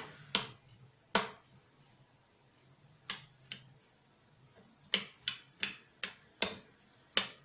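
Spoon clicking against a small ceramic bowl while stirring crushed biscuits into cream: about ten sharp taps, sparse at first, then coming roughly three a second in the second half.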